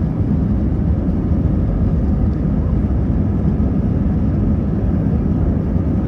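Steady low rumble and rush of air inside the cabin of an Airbus A321 airliner.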